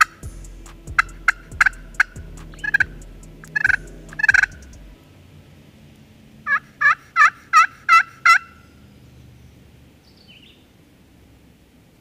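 Turkey yelps from a friction turkey call worked with a striker: scattered sharp, high notes over the first few seconds, then a run of about seven evenly spaced yelps a little past the middle.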